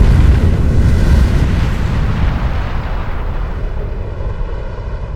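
A large building explosion: a deep rumble that starts loud and fades steadily as the building goes down in the blast.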